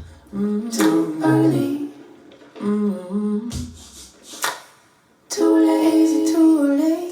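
A woman's wordless singing and humming in layered harmony, played back over hi-fi speakers. It comes in three phrases, with sharp percussive hits between them and a brief near-pause about five seconds in.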